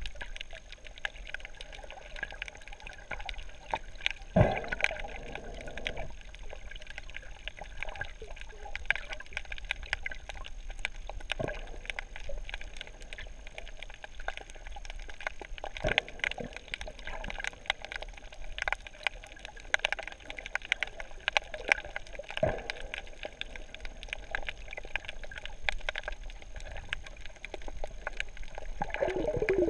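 Underwater sound heard through a GoPro's waterproof housing during a scuba dive: a steady crackle of small clicks, broken three times by gurgling bursts of the diver's exhaled regulator bubbles, the strongest about four seconds in.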